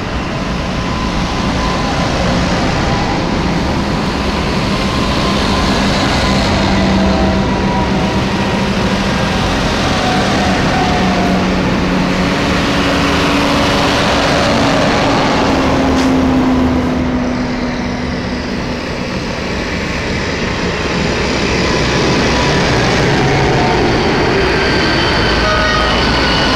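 A procession of large modern farm tractors driving past one after another, their diesel engines and big lugged tyres running loud and steady on the tarmac. The sound eases briefly a little past halfway, in a gap between tractors, then builds again as the next ones arrive.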